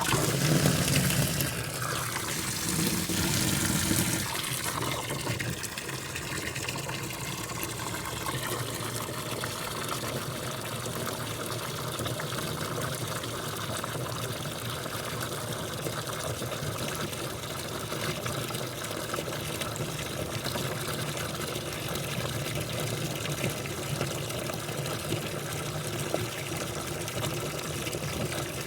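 A dishwasher running: water rushing and splashing inside it over a steady low pump hum. The rush is louder for the first four seconds or so, then settles to an even, steady wash.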